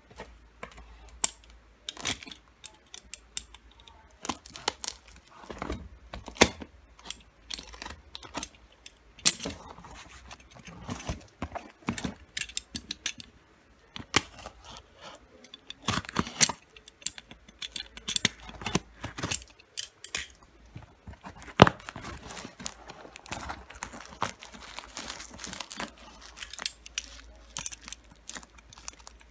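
Packaging being handled and opened by hand: plastic and paper crinkling and tearing, with many irregular sharp clicks and taps.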